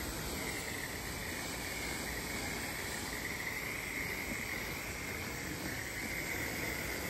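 Garden hose with a hose-end sprayer bottle spraying a water-and-insecticide mix onto lawn and shrubs: a steady hiss of spray, with a steady high-pitched tone running over it.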